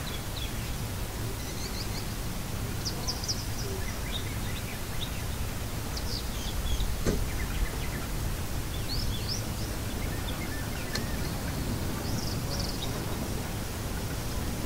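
Small birds chirping now and then in short high calls over a steady low background hiss of an ambient nature track. One sharp click comes about seven seconds in.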